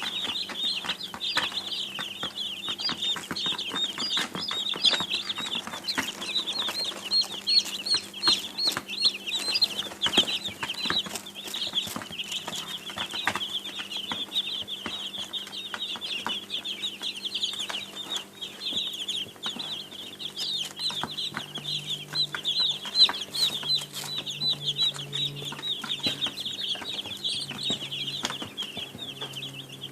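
A brood of baby chicks peeping all at once: a dense, continuous chorus of short, high cheeps overlapping without pause, with scattered faint ticks among them.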